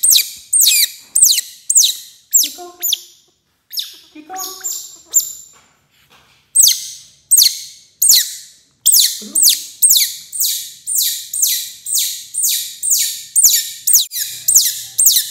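Baby otter calling in a rapid series of shrill, high-pitched chirps, each falling in pitch, about two to three a second. It begs for the fish held above it. The calls thin out about four seconds in, then go on steadily.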